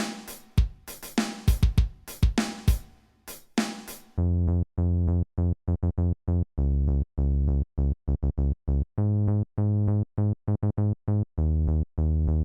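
Electronic drum-machine beat with kick, snare and hi-hat, which stops about four seconds in and gives way to a rhythmic synthesizer line of short, chopped notes and longer held ones.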